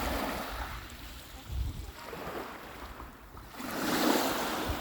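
Lake Ontario waves breaking and washing onto the beach, with one wave swelling in about three and a half seconds in and peaking near the end. Wind rumbles on the microphone underneath.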